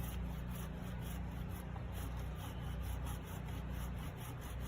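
Hand saw cutting through a wooden 2x4, a steady run of back-and-forth rasping strokes.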